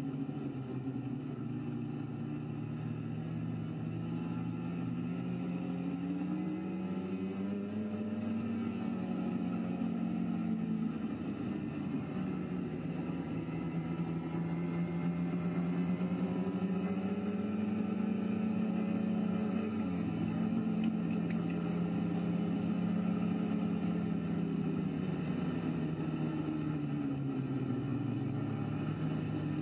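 BRP snowmobile engine running while under way on a trail. Its pitch rises and falls several times as the throttle is opened and eased.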